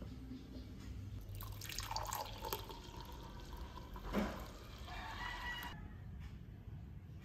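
Coffee being poured from a carafe into a glass mug, liquid splashing and filling for about four seconds and then stopping abruptly, with a short knock near the middle.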